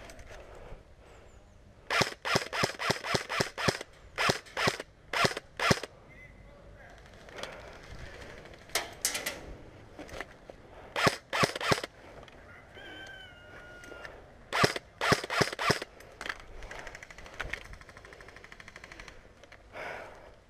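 Airsoft guns firing in several quick bursts of sharp shots, about five a second in the longest run near the start, with shorter bursts spread through the rest.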